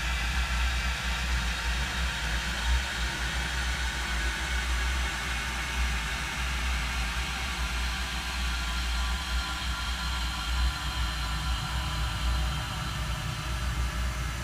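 A recording of a person coughing into a stage microphone, slowed down about 24 times. It is smeared into a steady, noisy drone with a deep low hum and no separate coughs to be heard.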